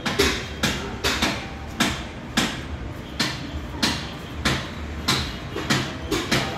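Footsteps knocking on the deck of a railway foot overbridge, a little under two steps a second, over a low steady rumble.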